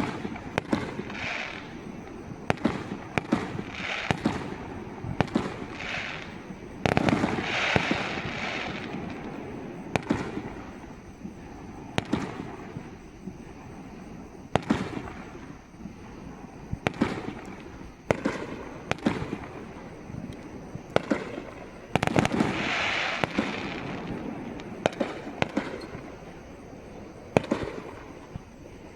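Aerial fireworks display: a steady run of sharp booms from shells bursting, with a long crackling, hissing stretch about a quarter of the way in and again past two-thirds of the way through.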